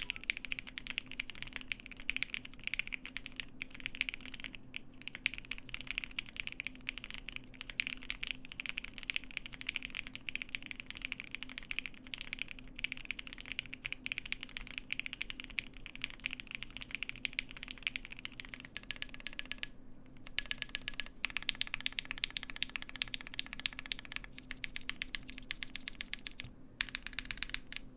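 Fast typing on a Cannon Keys Bakeneko60 mechanical keyboard fitted with lubed and filmed Lavender switches and PBT keycaps: a dense stream of key clacks, with a short pause about twenty seconds in and another near the end.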